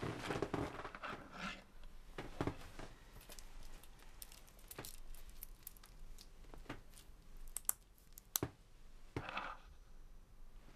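Small metal objects handled on a wooden bedside table: a link-bracelet wristwatch and a coin, giving scattered light clicks and clinks, with brief rustling of bedding near the start and again about nine seconds in.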